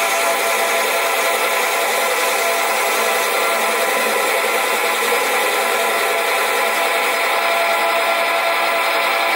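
Sieg SC4 metal lathe turning a model steam engine flywheel. A steady machine whine, with the scraping of the cutting tool against the spinning metal.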